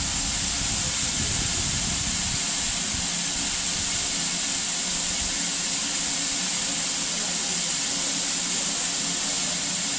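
Steam locomotive standing still, letting off a steady hiss of escaping steam.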